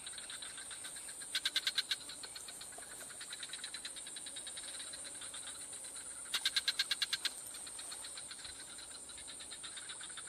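Insects shrilling in a steady high tone, with a frog calling in short trains of rapid pulses, once about a second in and again about six seconds in.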